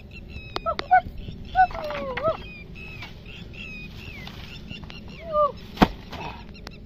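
Birds calling, many short arching chirps repeated over faint outdoor background, with a single sharp knock a little before the end.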